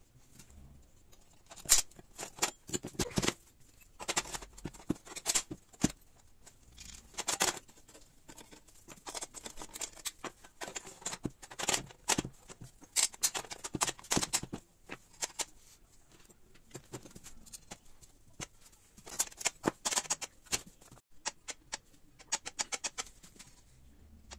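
Irregular clicks, taps and light knocks of metal parts being handled and fitted by hand inside a homemade steel RC tank hull, around the cannon-lifting gear mechanism.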